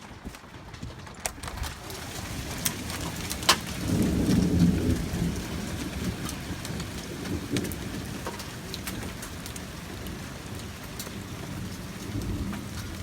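Hail falling and pelting hard surfaces: a dense patter of sharp ticks, with a few louder single hits. A low rumble swells about four seconds in and again near the end.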